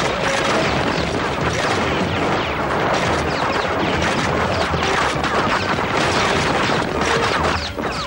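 Sustained automatic gunfire with crashes and smashing of things being hit, a dense, continuous racket that stops near the end.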